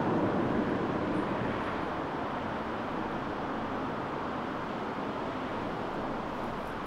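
Road traffic: a passing car's tyre and engine noise, fading away slowly.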